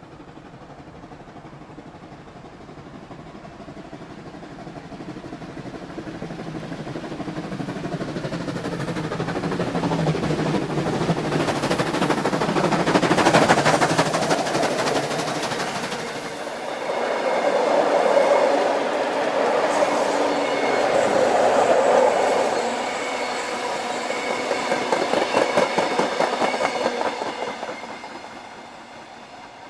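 Railway train running, growing louder through the middle and fading out near the end.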